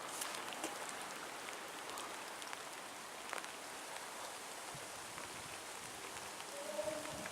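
Steady hiss of water with scattered drip-like ticks, and a brief pitched tone near the end.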